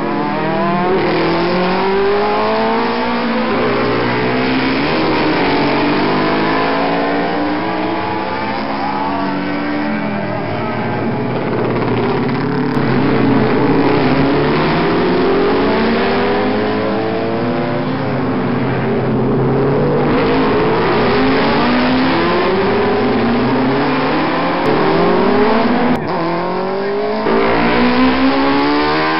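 Classic road-racing motorcycles running hard past on a street circuit, one after another and sometimes several at once. Their engine notes rise and fall as the riders rev, shift and accelerate out of the corner.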